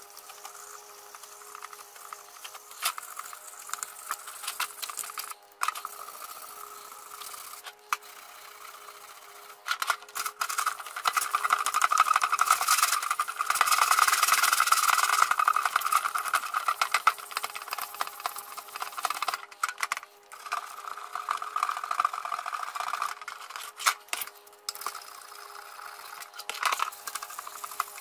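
Hand sanding of a painted sheet-steel tool box with 240-grit sandpaper: scratchy rubbing in quick strokes, loudest from about ten to sixteen seconds in, with brief pauses between spells. A faint steady hum runs underneath.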